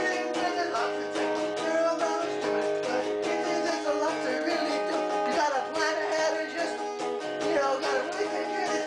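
Electric guitar strumming chords with a man singing over it, a homemade comic song about kittens.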